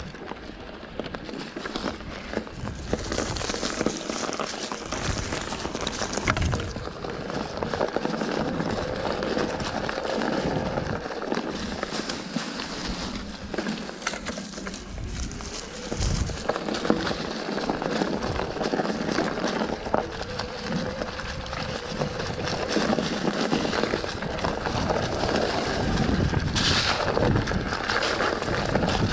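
Electric mountain bike tyres rolling and crackling over dry fallen leaves and dirt, with frequent small clicks and rattles from the bike over the bumps and a few heavier knocks.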